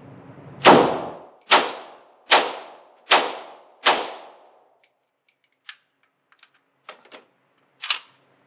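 Arsenal SLR-107fr AK rifle in 7.62x39 firing five semi-automatic shots, a little under a second apart, each with a short echoing tail. After them come a few fainter, sharper cracks.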